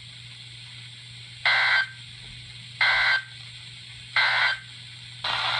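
Weather radio end-of-message SAME tones: three short bursts of raspy digital data screech about a second and a half apart, marking the end of the alert. Radio hiss comes in near the end.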